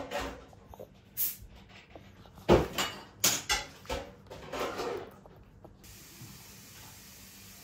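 A run of short sharp knocks and clatters, several in quick succession, the loudest about two and a half seconds in; then a faint steady hiss.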